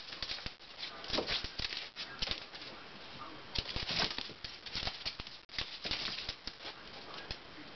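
Claws of two small terrier-mix dogs scratching and tapping at a wooden door as they jump up at a laser dot, a fast, irregular scrabbling clatter.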